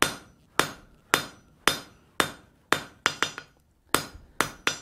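Blacksmith's hand hammer striking a red-hot steel bar on an anvil, drawing it out: steady blows about two a second, each ringing briefly, with a few quicker, lighter taps about three seconds in and again near the end.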